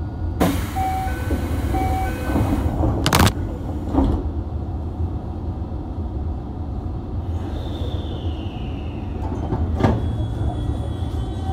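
Sliding doors of a subway car closing at a station: a hiss with short repeated chime tones, then a sharp thump about three seconds in as the doors shut, and a second knock a second later, over the car's steady low hum.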